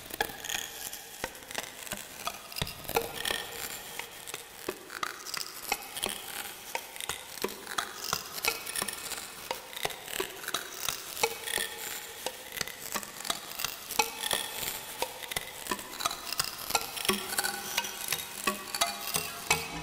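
Ambient modular synth texture from a Mutable Instruments Rings resonator fed through a Clouds granular texture synthesizer: a dense stream of short plucked, glassy pings with a crackling grainy wash. The pings settle into a regular pulse of about three a second near the end.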